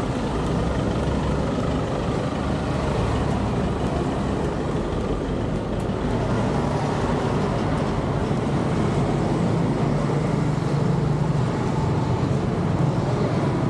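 Street traffic: a steady rumble of vehicle engines and road noise, growing a little louder about ten seconds in.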